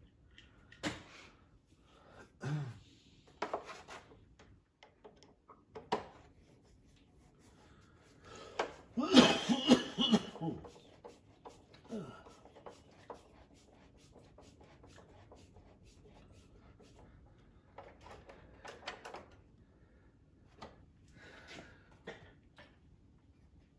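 Scattered light clicks and clinks of hand tools and small metal parts as the linkage on a riding mower's carburetor is hooked up. About nine seconds in, a man coughs and clears his throat, the loudest sound.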